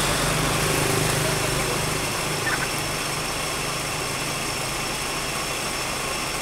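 A motor vehicle engine running with a steady low hum that fades over the first two seconds, over a constant background hiss.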